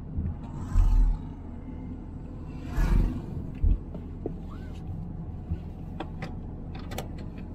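A moving vehicle on the road: steady engine and road rumble, with wind buffeting the microphone in several short low gusts.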